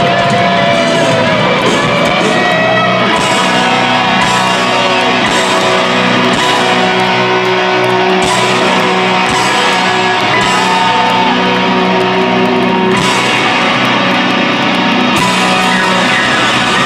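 Live rock band heard loud from the audience: an electric lead guitar plays a solo of sustained, bent notes over grand piano and the full band.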